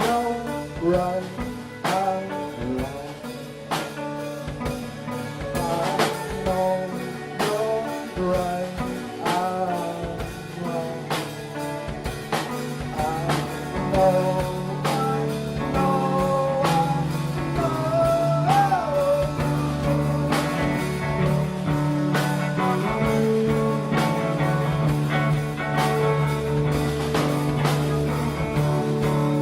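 Live rock band playing: guitar and drum kit, with sustained notes and regular drum hits.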